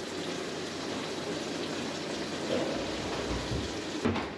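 Tap water running steadily into a plastic spin-mop bucket in the kitchen sink as it fills. A short knock near the end as the bucket is lifted out.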